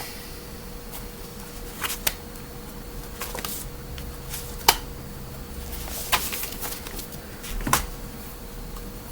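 Irregular light clicks and taps of small objects being handled, about eight over several seconds, over a steady faint hum.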